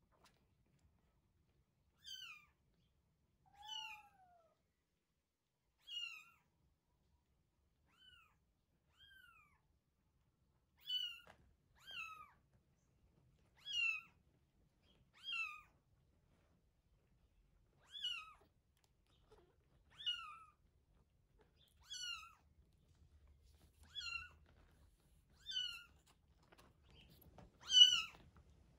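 Week-old kitten mewing over and over: short, high-pitched cries that slide downward in pitch, one every second or two, with the loudest cry near the end.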